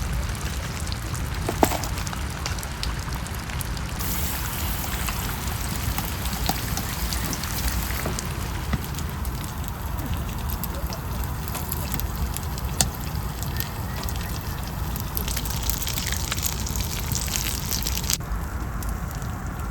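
Seafood scallion pancake batter sizzling in hot oil in a pan over a wood fire: a steady crackling hiss with sharp pops, over a low rumble.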